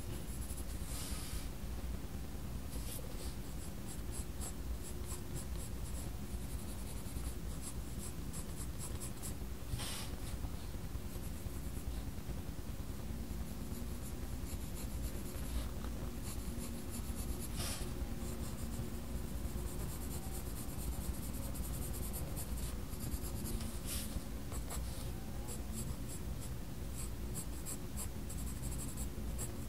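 Faber-Castell Polychromos coloured pencil scratching across sketchbook paper in runs of quick, short strokes with brief pauses, over a steady low hum.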